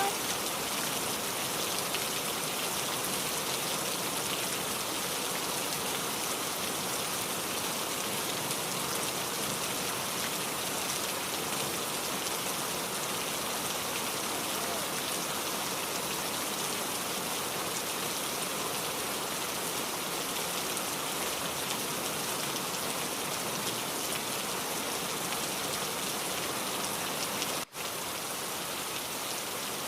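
Heavy rain falling steadily, a dense even hiss of raindrops. It cuts out for an instant near the end.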